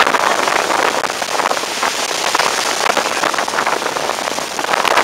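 Steady rushing hiss of wind and water on the deck of a moving ferry, full of fine crackle.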